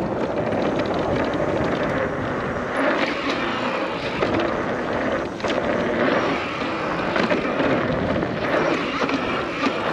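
Electric mountain bike being ridden around a dirt track: a steady rush of wide tyres rolling over dirt and riding noise, with a brief dip about halfway through.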